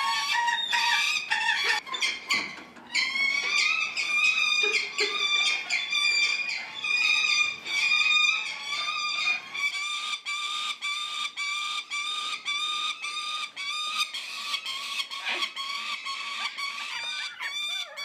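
Falcon chicks calling in a rapid, steady series of high, shrill begging calls, about three to four a second.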